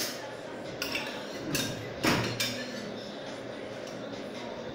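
Kitchen clatter as ingredients are tipped into a plastic blender jug: several short knocks and clinks of cups and utensils against the jug, the loudest about two seconds in.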